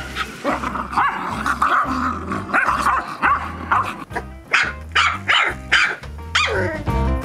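Pumi barking in a run of short, high barks, one after another, with a second cluster in the last couple of seconds, over background music with a steady bass beat.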